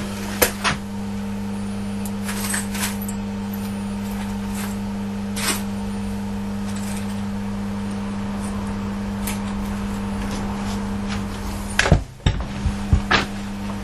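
Light metallic clicks and clinks of bolts and tools being handled, with a cluster of louder knocks near the end, over a steady low machine hum.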